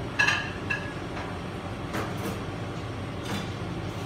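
Two short ringing clinks about half a second apart near the start, with a few fainter clicks later, over a steady low hum.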